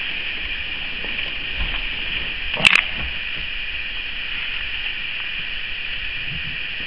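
Steady high-pitched hiss of recording noise, with a single sharp click about two and a half seconds in.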